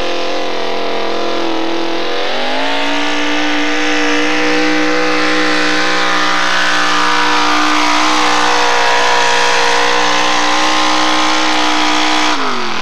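Modified four-wheel-drive pulling truck's engine at full throttle under load, dragging a weight-transfer sled. The revs climb about two seconds in, hold steady through the pull, and drop sharply near the end.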